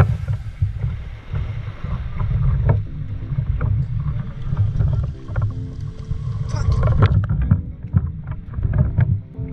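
Muffled underwater sound through a camera's waterproof housing: a constant low rumble of moving water with scattered clicks and knocks as the swimmer moves.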